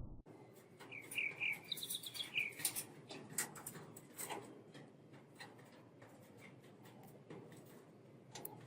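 Small birds chirping a few short notes in the first couple of seconds, with scattered light clicks and taps through the rest.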